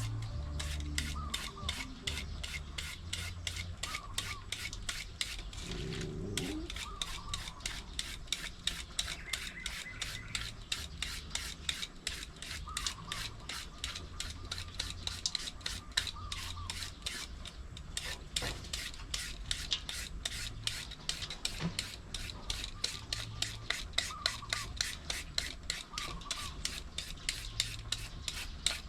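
Green papaya being shredded by hand: a steady run of rasping strokes, about three to four a second.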